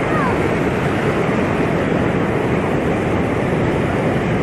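Sea waves washing on the shore, a steady rush of surf with no break in it.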